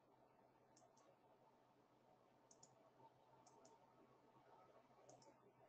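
Near silence broken by faint computer mouse clicks: four short double clicks spread across a few seconds.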